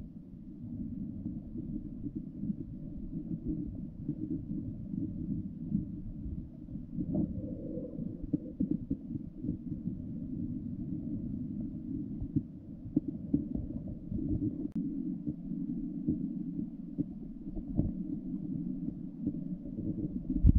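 Muffled underwater sound of a flowing river heard through a submerged camera: a steady low rumble with scattered faint clicks and ticks.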